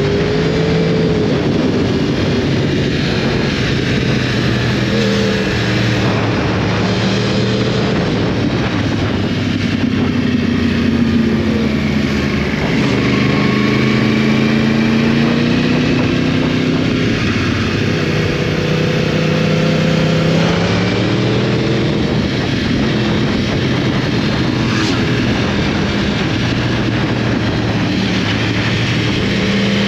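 2012 Yamaha YZF-R1's crossplane inline-four engine being ridden hard, revving up and dropping back again and again as the rider works through the gears.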